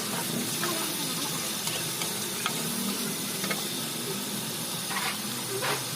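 Food frying in a pan: a steady sizzle with scattered short crackles and pops.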